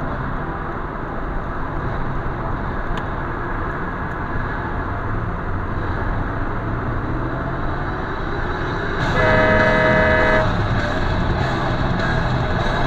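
A vehicle horn sounds once, held for about a second and a half near the end, over steady tyre and road noise inside a moving car.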